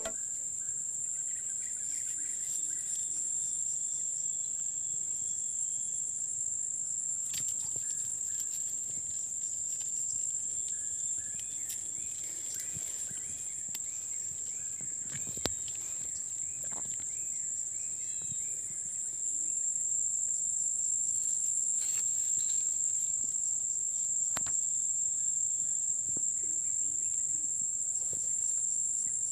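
Insects shrilling in one steady, high, unbroken tone, with faint scattered chirps in the middle stretch and a sharp click about halfway through.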